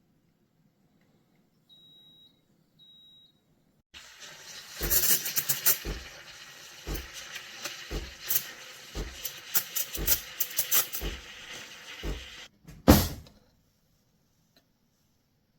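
Compact espresso machine beeping twice, then running with a hissing noise and regular thumps about once a second for around eight seconds, ending in a loud burst before it cuts off.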